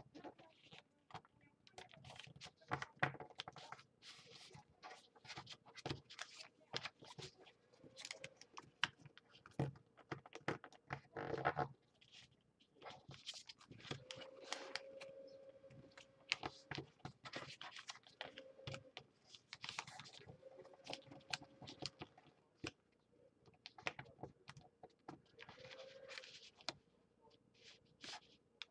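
Origami paper being folded and creased by hand: irregular crackling, rustling and short sharp taps as the sheet is bent, pressed flat and handled on a tabletop.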